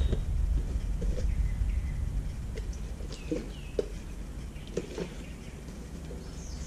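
Microfiber cloth with rubbing alcohol being handled and wiped over a motorcycle's glossy painted tank panel, giving scattered soft taps and a few faint squeaks over a low steady hum. The panel is being cleaned of wax and debris before protective film goes on.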